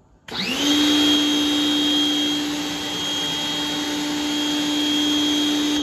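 WAP Ousada Plus 2200 electric pressure washer starting up: its motor whine rises in pitch just after the start, then runs steadily with the hiss of the water jet spraying from the adjustable nozzle onto the tiles.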